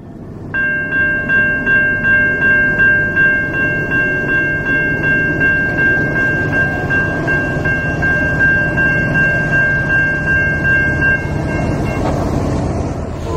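Railroad crossing bell ringing steadily at about three strokes a second while the crossing gates come down, falling silent about twelve seconds in once the gates are lowered. A train horn starts to sound right at the very end.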